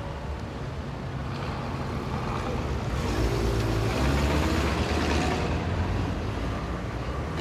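Road traffic with a light box truck driving past close by: engine and tyre noise grow louder, peak about halfway through, then fade as it goes by.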